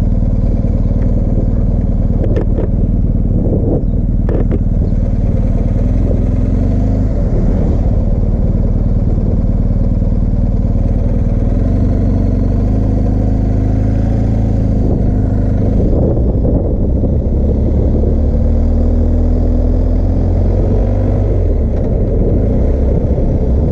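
BMW R1250GS Adventure's boxer-twin engine running under way at low road speed. Its pitch steps up and down as the bike speeds up, changes gear and slows. There are a couple of brief knocks a few seconds in.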